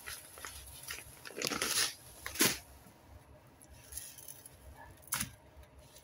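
Chicken pieces being pressed and turned in dry bread crumbs in a stainless steel bowl: gritty rustling and crunching of the crumbs, with two sharp knocks about two and a half and five seconds in.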